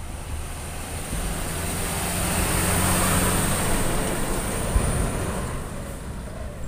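Diesel tractor unit hauling a shipping container on a trailer drives past, its engine hum and tyre noise growing louder to a peak about three seconds in and then fading. There is a single sharp knock a little before the five-second mark.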